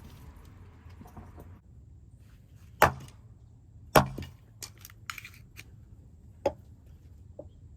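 Axe chopping wood: three sharp strikes a second or two apart, with a few lighter knocks between them.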